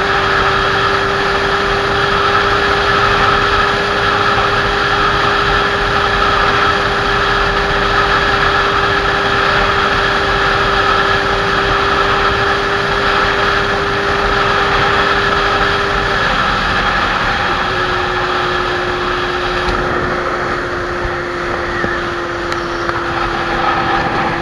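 Kawasaki Z800's inline-four engine holding a steady note while cruising, over a steady rush of wind and road noise. The engine note drops slightly about two-thirds of the way in and stays lower.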